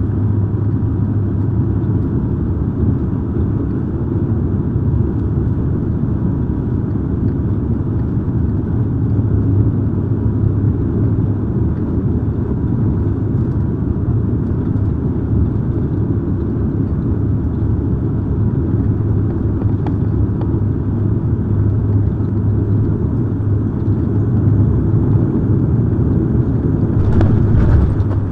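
Cabin noise inside a Bombardier Dash 8 Q400 on final approach: the steady low drone of its turboprop engines and propellers. Near the end a burst of louder rumble comes as the wheels touch down on the runway.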